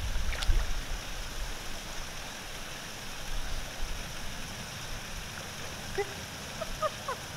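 Steady outdoor hiss beside a pond, with a small splash about half a second in as a fish is let go into the water, and a few short bird chirps near the end.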